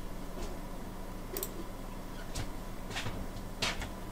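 Computer mouse clicking several times at irregular intervals, selecting sketch lines for a fillet, over a faint steady low hum.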